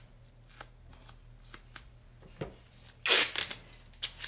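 Masking tape being handled: light crinkles and taps, then about three seconds in a loud rip as a strip is pulled and torn, followed by shorter crackles as it is pressed down.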